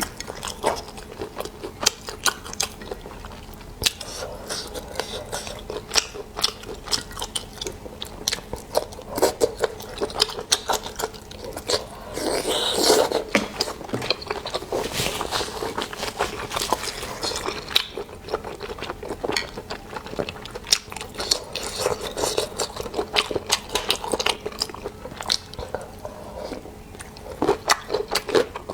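A person chewing seafood, with irregular wet clicks and crunches; a louder, noisier stretch comes about twelve seconds in.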